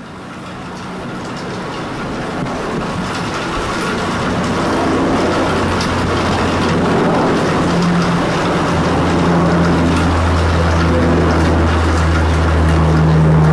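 Lockheed C-130 Hercules's four turboprop engines droning as the aircraft passes low overhead, growing steadily louder as it approaches. A deep steady hum with a higher tone above it strengthens in the second half.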